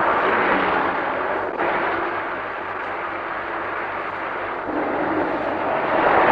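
Steady rumble of city street traffic, cars and a bus, easing off in the middle and swelling again near the end.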